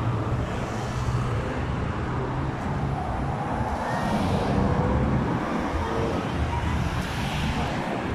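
Cars and a pickup truck passing close by on a wide road: a continuous drone of engines and tyres that swells as each vehicle goes past, about a second in, around four seconds and again near the end.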